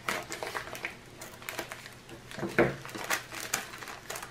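Plastic mailer bag crinkling as it is snipped open with scissors and handled, a run of irregular sharp crinkles with a louder one about two and a half seconds in.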